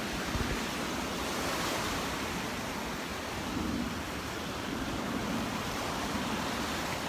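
Gulf surf washing ashore in a steady rush that swells and eases, with wind buffeting the microphone.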